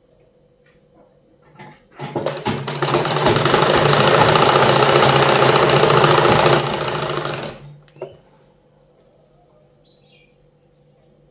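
Sewing machine stitching a seam through nighty fabric: it picks up speed about two seconds in, runs at a steady fast stitch for about five seconds, then slows and stops, followed by a single click.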